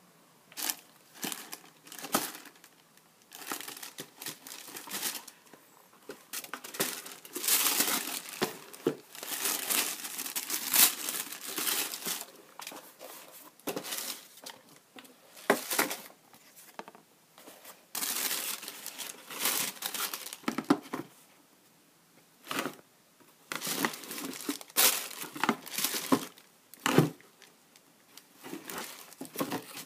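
Tissue paper in a shoebox crinkling and rustling in irregular bursts as a pair of canvas sneakers is handled.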